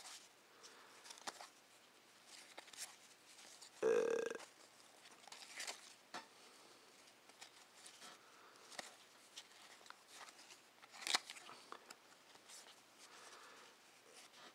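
Soft rustling and small clicks of trading cards being flipped through by hand, with a brief murmured voice about four seconds in and a sharper click of card stock about eleven seconds in.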